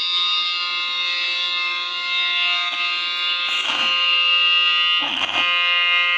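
Allertor 125 outdoor warning siren sounding a steady tone at full pitch, a chord of several notes held without rising or falling. Two brief rushes of noise cut across it, about three and a half and five seconds in.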